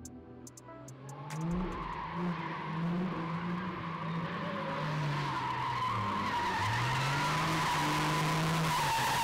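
Drifting cars coming closer through a corner: engines revving up and down over and over, with tires squealing and skidding. The sound grows steadily louder until the end.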